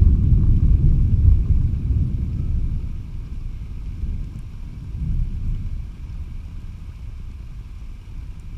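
Rolling thunder: a deep rumble that is loudest at first, dies away over a few seconds, swells briefly again about five seconds in, and fades to a low grumble.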